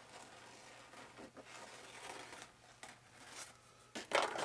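Hands rubbing and pressing on fiber tape glued onto an RC wing, faint rustling with a short, louder scrape about four seconds in.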